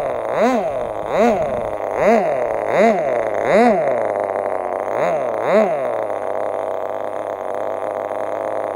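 MP-JET .061 model aircraft engine running on a hand-held RC plane, its revs rising and falling in quick regular surges about every three-quarters of a second, then settling to a steady lower speed about six seconds in.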